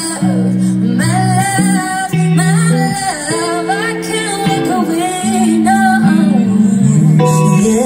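Live pop band playing: a female lead vocal sings a wavering melody over electric guitar and sustained bass notes.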